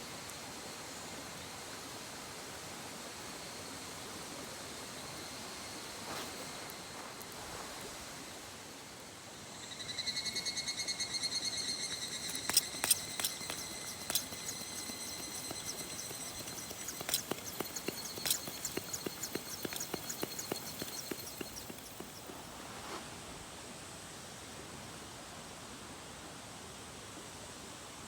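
A high, ringing animal call with rapid clicking pulses starts about a third of the way in and lasts roughly twelve seconds, over a steady rushing hiss.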